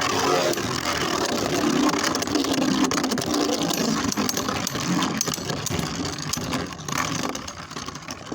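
Two Beyblade Burst spinning tops whirring and clattering against each other in a plastic stadium. The sound thins out near the end as the battle finishes.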